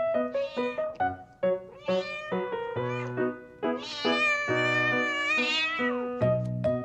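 A domestic cat meowing several times over background music, with a long drawn-out meow in the second half.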